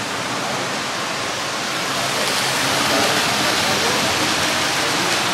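Steady rushing din of a busy hall, with indistinct voices underneath it.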